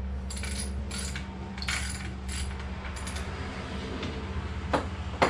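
Irregular light metal clinks and taps of nuts, washers and a wrench being fitted onto the side motor mount bolts of a 1992 Johnson 25 hp outboard, with a sharper knock near the end. A steady low hum runs underneath.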